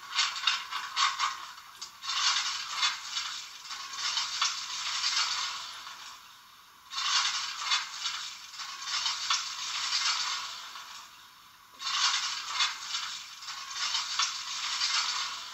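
Sound decoder of a Trix H0 BR 42 model steam locomotive playing steam sounds through its small speaker, thin with no low end, coming in spells of a few seconds with short breaks between them.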